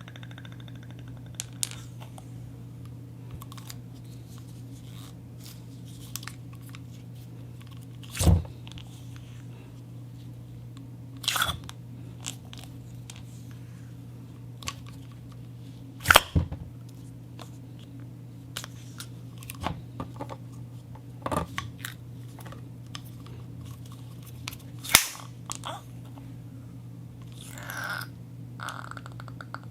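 Handling noises from rubber and a syringe: scattered small clicks and squeaks, with about five louder sharp clicks spread through, over a steady low hum.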